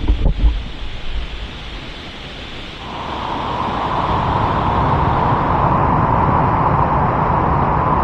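Rushing white water of the Ntumbachushi Falls cascade, swelling louder about three seconds in and then holding steady. A few low thumps hit the microphone in the first second.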